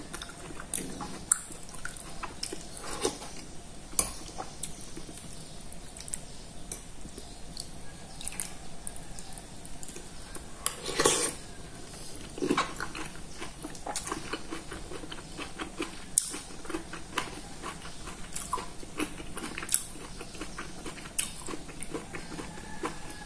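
Eating sounds: a metal spoon clinking and scraping in a ceramic soup bowl, with slurping and chewing. The loudest is one slurp about halfway through.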